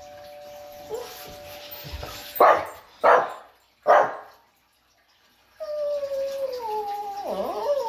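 A doorbell chime's two tones ring out and fade, then a Shih Tzu barks three times and, after a short pause, gives a long whining howl that slides down in pitch and wavers near the end.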